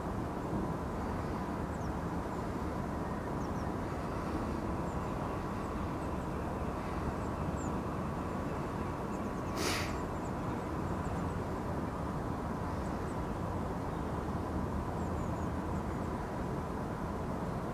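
Steady outdoor background rumble, typical of distant city traffic, with faint high chirps scattered through it and one sharp click a little under ten seconds in.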